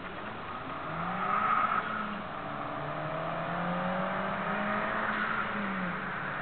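Turbocharged 2.0 L four-cylinder engine of a Hyundai Tiburon with a side-exit exhaust, accelerating hard. Its pitch climbs about a second in and drops near two seconds. It then climbs again, longer, and falls off near the end.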